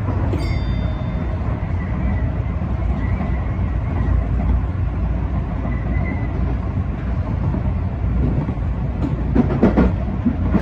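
Tobu 9000 series electric commuter train running along the line, a steady rumble heard from inside the front of the train. A brief high tone comes about half a second in, and a quick run of wheel clicks over rail joints comes near the end.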